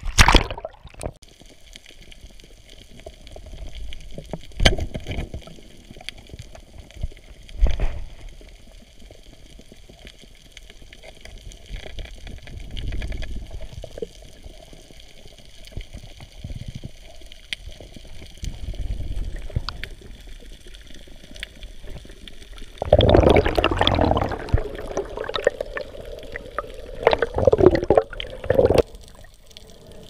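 Underwater water noise heard through a camera housing: low sloshing and bubbling in uneven bursts, over a faint steady high tone. About 23 seconds in, a louder stretch of bubbling and rushing water lasts several seconds.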